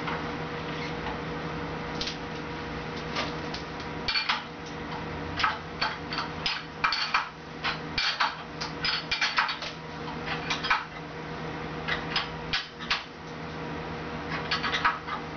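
Short metallic clicks and clanks from the steel clamp handles and jaw parts of a manual sheet metal brake as the clamp screws are cranked and parts are set, coming in irregular clusters through the middle and again near the end. A steady hum runs underneath.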